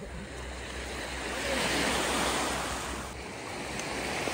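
Sea surf washing on the shore: a wave swells to its loudest about two seconds in and eases off a second later.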